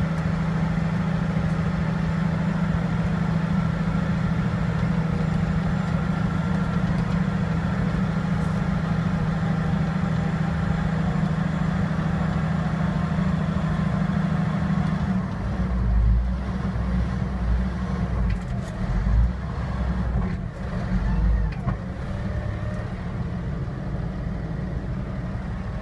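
Cat D8T bulldozer's diesel engine heard from inside the cab, a steady loud drone while the blade pushes soil. About fifteen seconds in the steady hum stops and the sound turns uneven, with several heavy deep thumps over the next six seconds.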